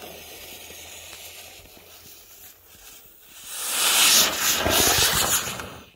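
A lit fuse sputtering with a steady hiss, then about three seconds in the 'Helicopter' firework taped to a toy car ignites with a much louder rushing hiss that lasts about two and a half seconds and stops suddenly.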